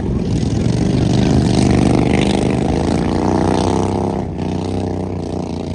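Racing lawn mower engines running hard, their pitch rising and falling as they rev, with a brief dip a little after the middle.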